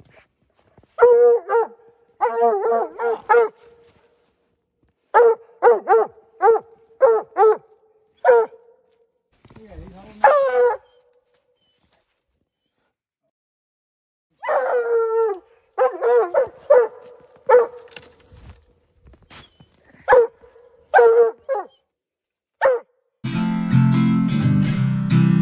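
Young hound barking treed at the base of a tree: repeated short chop barks in quick bursts, with a couple of longer drawn-out bawls mixed in. Acoustic guitar strumming comes in near the end.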